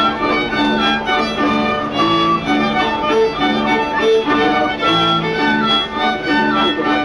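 Instrumental Czech-Slovak folk dance music with a steady beat, a melody moving in quick regular notes over a repeating bass line.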